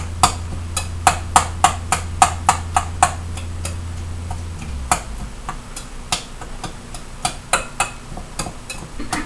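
Fruit being chopped in a glass bowl with a hand utensil: sharp taps of the utensil against the glass, about three a second for the first three seconds, then slower and irregular.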